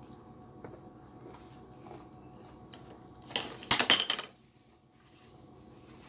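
A loud burst of rustling and crinkling, under a second long about three and a half seconds in, as a tissue is taken and crumpled in the hands. Around it only a few faint clicks of handling at the table and a steady faint hum.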